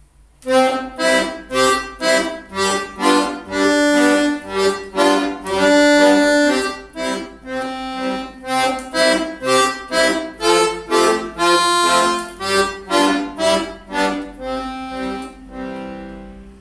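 Piano accordion played solo: short chords repeated at about two a second, with a few longer held chords between them. The playing starts just after the beginning and fades away near the end.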